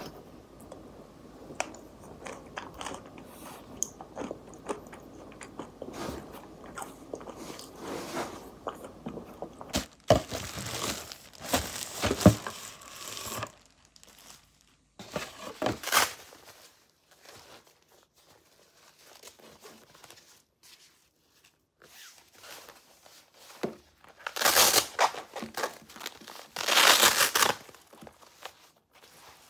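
A hook-and-loop (Velcro) fastener on a fabric leg-massager wrap is ripped open twice near the end, each rip lasting about a second. Earlier come softer handling clicks and a stretch of paper-like rustling.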